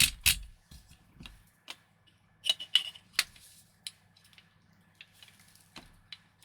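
Scattered metal clicks and knocks of an airsoft rifle being taken apart and fitted together by hand, its takedown pins and receiver parts being worked. Two sharp clicks open it, a quick cluster with a brief metallic ring comes about two and a half seconds in, then a few lighter clicks, over a faint steady hum.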